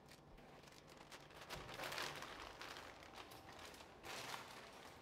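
Faint rustling and crinkling of a clear plastic bag as a plush toy is pulled out of it, loudest around two seconds in.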